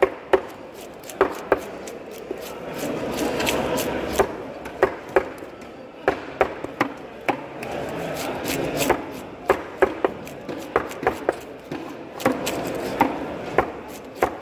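A large knife chopping barracuda steaks into chunks on a cutting board: sharp knocks, some single and some in quick runs, over a steady background din.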